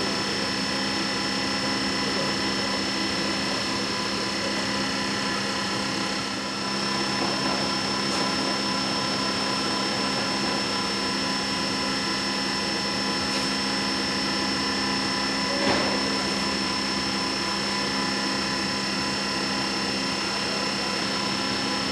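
Doosan Puma 3100ULY CNC lathe running: a steady machine hum with several steady high tones over a noisy haze, and a single short knock near the end.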